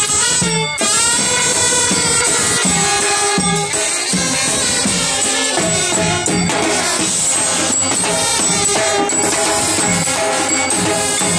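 Brass band playing: trumpets carry a melody over drums and cymbals beating a steady rhythm.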